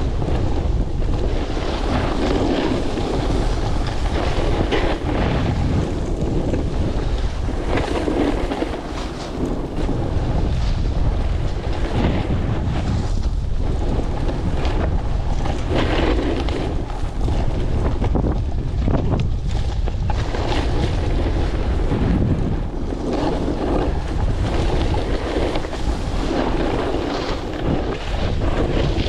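Strong wind buffeting the microphone: a loud, continuous rumbling rush that swells and eases in gusts every few seconds.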